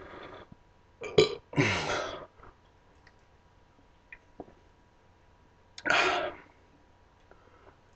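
A man belching repeatedly while chugging a can of Sprite: a short burp about a second in, a longer one just after that falls in pitch, and another about six seconds in.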